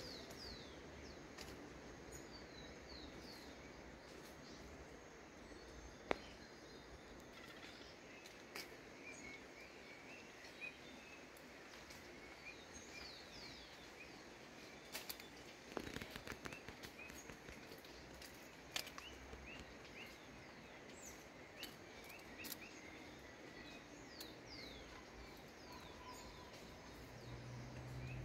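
Faint outdoor background with many short, high, falling chirps from small birds scattered throughout. A few sharp clicks stand out, the loudest about six seconds in and a cluster a little past halfway.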